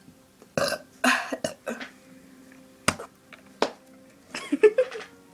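A person burping in short bursts, with two sharp clicks in the middle and a quick run of burps near the end, the loudest of the lot.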